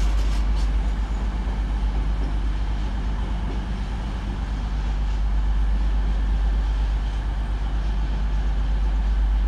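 Diesel train engine running at a station platform: a steady, loud low rumble with a constant hum.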